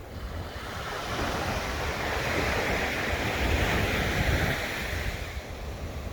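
Sea waves breaking on the shore: one wave's wash swells up about a second in and fades away near the end. A steady low rumble of wind buffets the microphone throughout.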